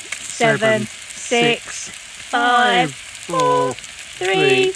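T-bone steaks sizzling on the hot grill plate of a Ninja Woodfire grill: a steady frying hiss. Over it a voice counts down, about one number a second.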